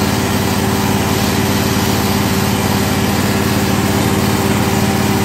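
Portable milking machine's motor-driven vacuum pump running with a steady hum while the teat cups are on the cow and milking.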